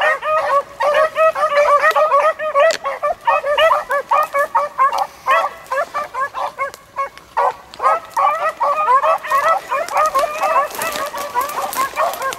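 A pack of beagles baying together in full cry on a rabbit's scent, many short, high calls overlapping without a break.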